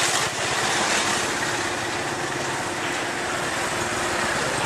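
Motor scooter engines running in street traffic, a steady mechanical hum.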